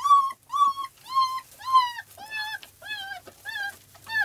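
Young puppy whining, a steady run of short high-pitched cries, each rising and falling, about two a second.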